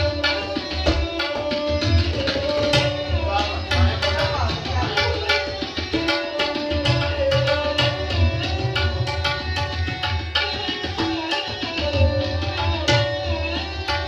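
Sarangi playing a bowed melody with sliding notes, accompanied by tabla keeping a steady rhythm with deep bass strokes.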